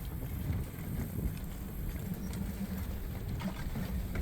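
Steady low rumble of a vehicle moving, with a few faint clicks.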